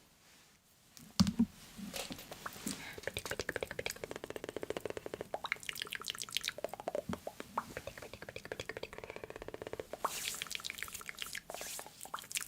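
Close-up wet mouth sounds: a dense run of small, rapid wet clicks and smacks that starts about two seconds in, after a single louder pop.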